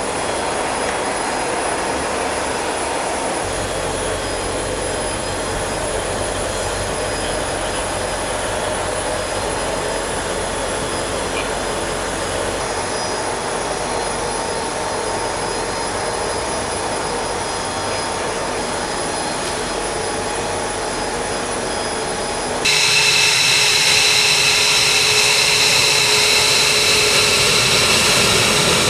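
Steady jet engine noise. About three-quarters of the way in it cuts to a louder jet with a strong high turbine whine: an F-22 Raptor's F119 turbofan engines as the jet taxis.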